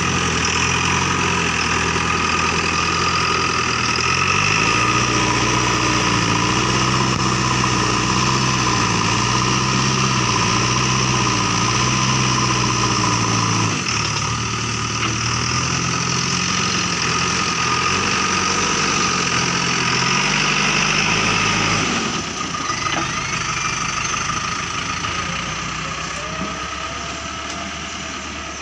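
JCB 3DX backhoe loader's diesel engine running under work. It revs up about four seconds in, drops back sharply about halfway, picks up again, then eases off and fades near the end.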